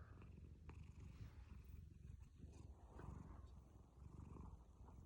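Domestic cat purring faintly, a low continuous rumble that swells and eases with its breathing.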